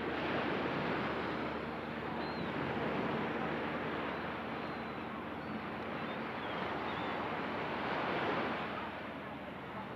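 Ocean surf washing onto a beach, the rush of the breaking waves swelling and easing several times.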